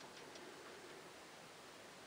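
Near silence: a steady faint hiss of room tone, with a few soft ticks in the first half-second.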